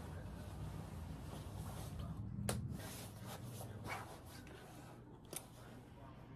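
Faint rustling of a nylon padded coat being put on and handled, with two light clicks, one midway and one near the end.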